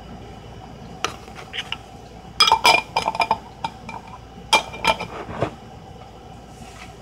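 A utensil clinking and tapping against glass and dishware in a few quick clusters, as peppers are served onto a plate.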